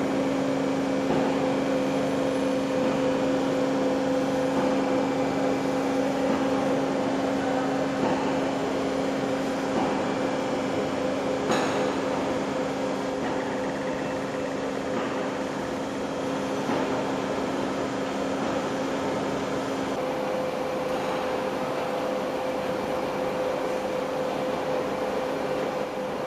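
Heavy-duty lathe running as it turns a large steel pipe: a steady machine hum with a couple of held tones. The lower tone drops out about two-thirds of the way through, and there is a single click near the middle.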